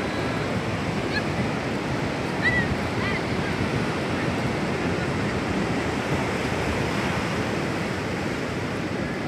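Ocean surf breaking and washing up a sandy beach: a steady rushing of waves that holds at an even level throughout.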